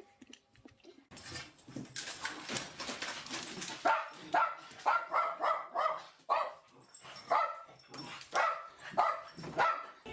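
A dog barking and yipping in a run of short calls, about two a second, starting about a second in.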